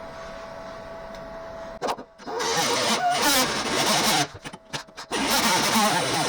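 Handheld grinder with a cut-off wheel starting up about two seconds in and cutting sheet metal, its pitch wavering under load. It stops briefly midway and starts cutting again about five seconds in.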